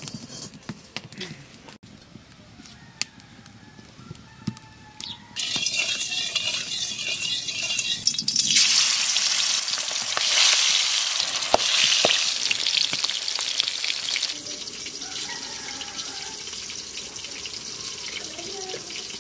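Food sizzling as it goes into hot oil in a wok: a hiss that starts suddenly about five seconds in, grows louder about eight seconds in, and cuts off about fourteen seconds in. Before and after it, only light clicks and knocks.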